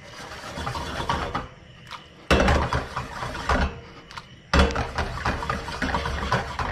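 Cooking pan with gnocchi in tomato sauce being stirred and moved, scraping and knocking in several bursts; the loudest start about two and a half and four and a half seconds in.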